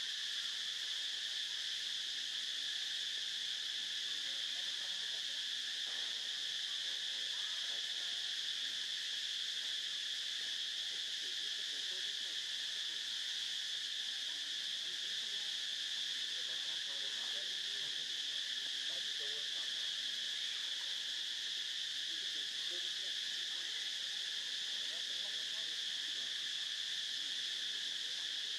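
Steady insect chorus: an unbroken, high-pitched drone that holds at an even level throughout.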